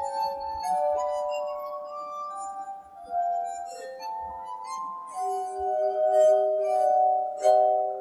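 Glass harp, tuned wine glasses rubbed at the rim with wet fingertips, sounding sustained ringing tones, several at once, that shift from note to note.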